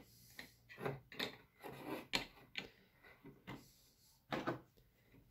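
Plastic GraviTrax marble-run pieces being handled and fitted together: light, irregular clicks and taps of hard plastic parts on each other and on the table, about a dozen in all.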